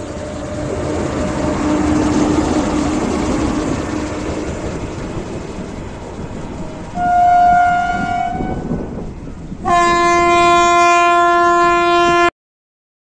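WAG-9 three-phase electric locomotive running along the track, its wheel-on-rail noise swelling and then easing as it passes and draws away. About seven seconds in its horn gives a short blast, and near the end a longer, lower blast that cuts off abruptly.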